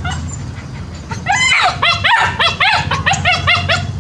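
Puppies yapping to be let out of their pen: a rapid run of about a dozen high-pitched yips starting about a second in, over a steady low hum.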